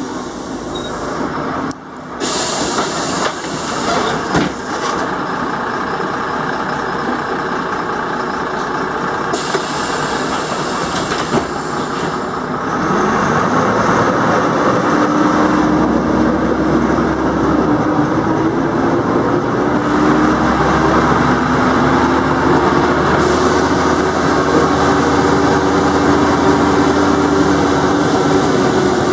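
Interior of a Jelcz 120MM/2 city bus. Air hisses twice in the first dozen seconds, then the diesel engine grows louder at about twelve seconds in as the bus pulls away. Its pitch climbs, drops back and climbs again through the gear changes.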